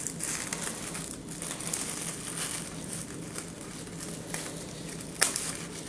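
Silver metallic deco mesh crinkling and rustling as it is gathered into ruffles by hand, with a couple of soft clicks near the end.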